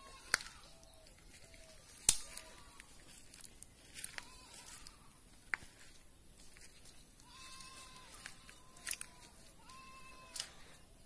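Footsteps crunching on dry leaf litter and twigs, with sharp cracks, the loudest about two seconds in. Short pitched animal calls sound at intervals in the background, a run of them in the second half.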